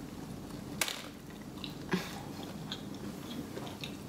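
A person biting into and chewing a burrito close to the microphone. Two sharp mouth clicks come about a second in and again near two seconds, with softer wet ticks of chewing after.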